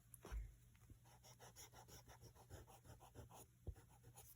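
Graphite pencil sketching lightly on sketchbook paper: a faint run of quick, repeated scratchy strokes.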